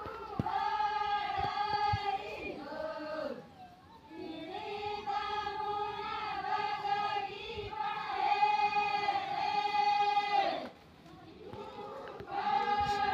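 A group of Adivasi women singing a traditional rain-prayer folk song together in unison, in long held phrases. The singing breaks off briefly about three and a half seconds in and pauses for about two seconds near the end.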